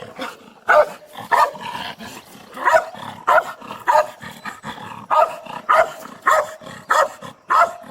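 Police K9 dog barking repeatedly and excitedly, about ten sharp barks with a short pause a couple of seconds in.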